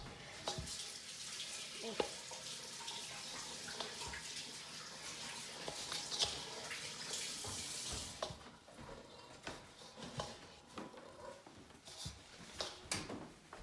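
Kitchen tap running into a sink as hands are washed, stopping about eight seconds in; after that, light scrapes and knocks of a plastic dough scraper working dough in a stainless steel bowl.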